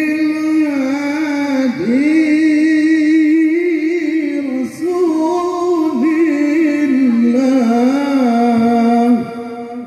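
A man singing sholawat solo in a high, melismatic voice through a microphone. He holds long, ornamented notes in four phrases, taking short breaths about two, five and nine seconds in.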